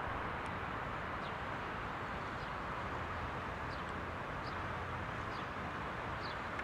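Short, high bird chirps, about one a second, over a steady, even rush of distant outdoor background noise.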